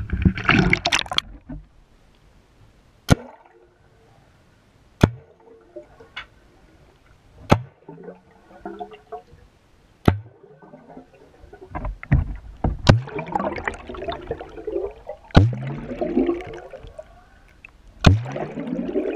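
Paintball gun fired underwater from a CO2 tank, with about seven sharp shots two to three seconds apart. Each shot is followed by gurgling bubbles from the released gas, and in the later shots this bubbling rises in pitch.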